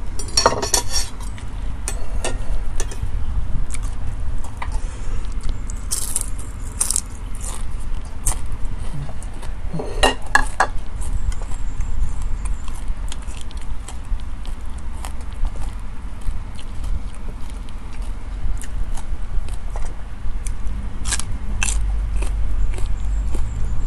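Close-up eating sounds: chewing, with scattered clicks and scrapes of a spoon against a bowl over a steady low rumble.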